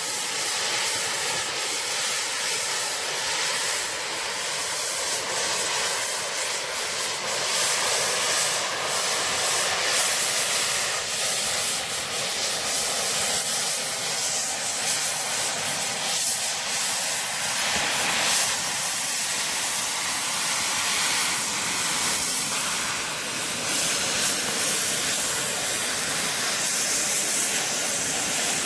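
Cutting torch hissing steadily as it cuts into the steel back panel of a safe, with faint brief crackles here and there.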